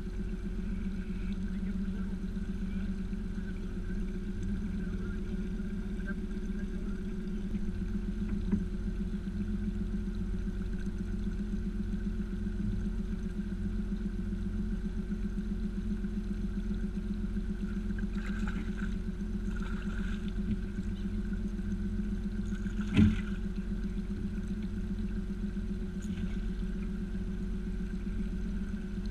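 Small fishing boat's motor running steadily with a low, even hum. A single sharp knock stands out about 23 seconds in, with a fainter one earlier.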